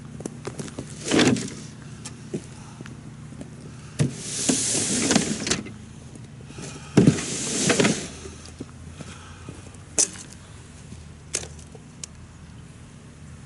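Boots crunching and scuffing in snow on lake ice, with a few sharp knocks of gear being handled near the end, over a steady low hum.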